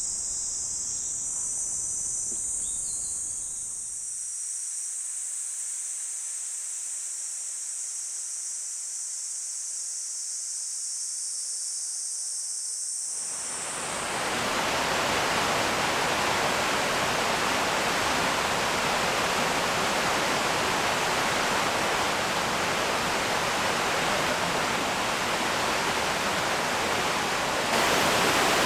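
Insects chirring in a steady high band over a quiet background, then, about halfway through, an abrupt change to the steady, full rushing of Yoro Falls pouring, which grows slightly louder near the end.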